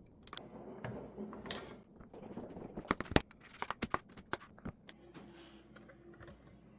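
Dishes and utensils knocking and scraping at the table. A soft scrape and rustle comes first, then a quick run of sharp clinks and knocks starting about three seconds in.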